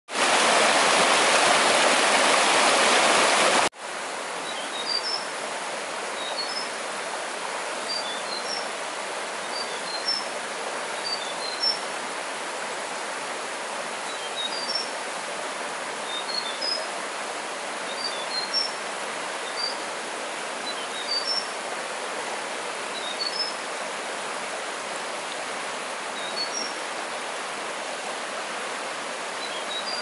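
Steady rush of flowing water, much louder for the first few seconds until it cuts off suddenly about four seconds in. After that it runs quieter while a bird repeats short high chirps every second or two.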